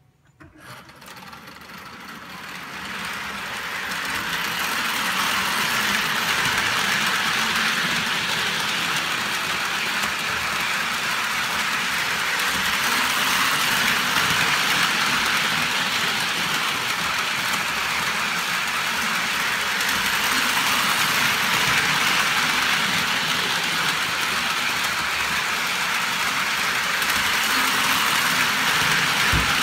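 Lionel O-gauge model steam locomotive and passenger cars running around the track, a steady whirring rumble of the motor and wheels that grows louder over the first few seconds and then holds steady.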